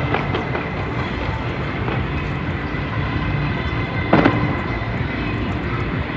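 New Year's fireworks going off in quick succession, their bursts blending into a steady low rumble, with one sharper bang about four seconds in.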